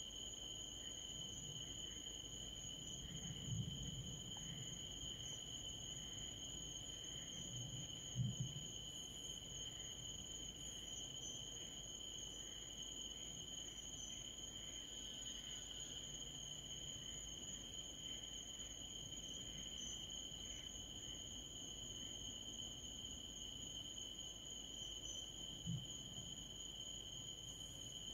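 Night insects, crickets, trilling in a steady unbroken chorus at one high pitch. Three faint low thumps come about 3 s, 8 s and 26 s in; the one at 8 s is the loudest moment.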